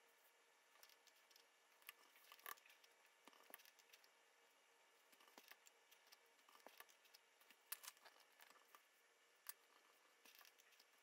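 Faint pen strokes and taps on paper at a desk, with scattered small clicks, against near silence.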